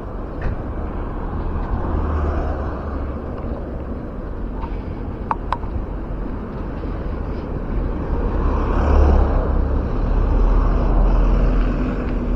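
Road traffic: a motor vehicle's engine and tyres passing, swelling about nine seconds in, with wind rumbling on the microphone. Two brief sharp clicks a little past five seconds.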